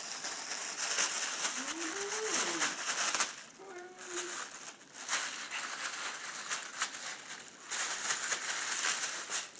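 A foil birthday balloon crinkling and crackling as a Yorkie bites and tugs at it, with a quieter stretch around 3 to 5 seconds in. Two brief low pitched sounds come through, one rising and falling about 2 seconds in, one level about 4 seconds in.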